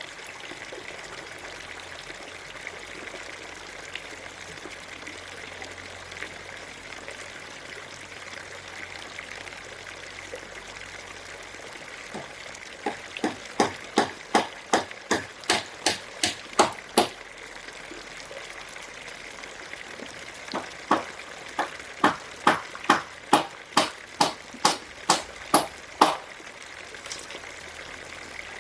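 Steady trickle of running water. From about halfway through it is broken by two runs of about a dozen sharp, evenly spaced knocks each, a few a second, with a short pause between the runs.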